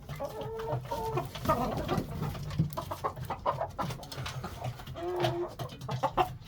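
Flock of laying hens clucking and calling in the coop, many short overlapping calls with some light knocks and rustling.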